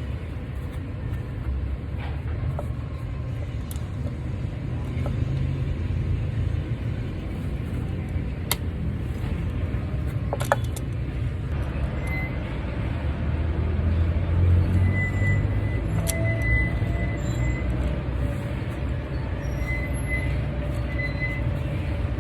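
Steady low rumble of a motor vehicle, with a few sharp clicks scattered through it.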